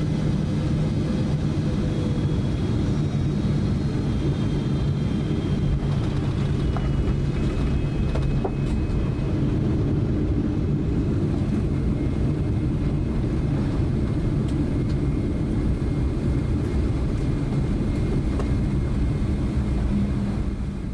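Boeing 777-300ER's GE90-115B turbofan at low taxi power, heard from inside the cabin: a steady low rumble with a faint high whine that sinks slightly in pitch in the first half.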